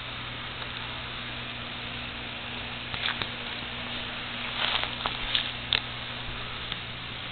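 Steady background hiss with a low hum, and a few brief faint scuffing noises a few seconds in; no meowing.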